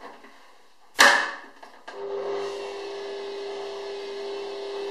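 A Bosch stand mixer is set going. There is a sharp clack at the machine about a second in, then its motor starts about two seconds in and runs with a steady even hum as the dough hook begins mixing wheat bread dough.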